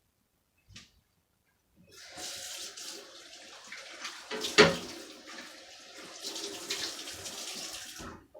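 Kitchen tap running for about six seconds, turned on and then off abruptly, with a single loud knock partway through.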